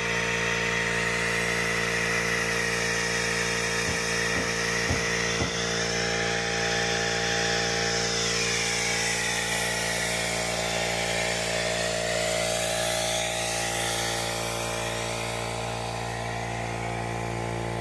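Small Kobalt portable air compressor running steadily, powering a pneumatic fluid extractor that is drawing engine oil up through the dipstick tube. A few light clicks come about four to five and a half seconds in.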